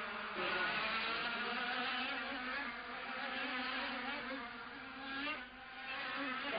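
Several racing karts' two-stroke engines buzzing at high revs, their pitch rising and falling as they go round, with a short drop in loudness about five seconds in.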